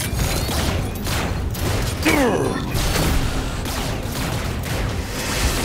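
Cartoon sound effects of a robot army charging: a dense, continuous mechanical din of moving robot parts. About two seconds in, a falling tone sweeps down through it.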